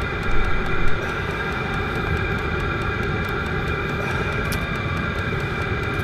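Vevor diesel air heater running: a steady fan and burner roar with a high whine over it and faint regular ticking. A brief louder rustle comes about half a second in.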